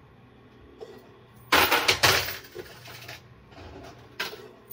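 Quarters clattering and jingling in a coin pusher machine: one loud metallic clatter of about a second, starting about a second and a half in, and a shorter one near the end.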